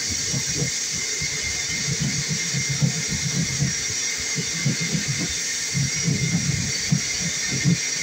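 Vacuum cleaner running steadily with a high whine, its hose held at the ceiling hole to catch drywall dust, while a hand drywall saw cuts the hole in uneven rasping strokes a few times a second.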